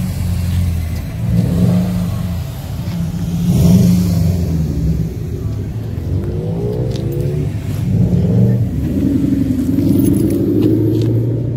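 Car engines and exhausts rumbling as cars pull slowly past, a Subaru WRX and then a Ford Mustang, loudest about four seconds in. Rising revs come about six seconds in and again near the end.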